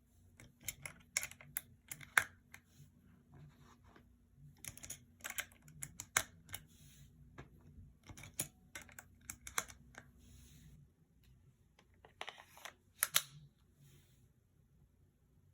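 Irregular sharp clicks and taps of small hard objects being handled, coming in several clusters with short pauses between them.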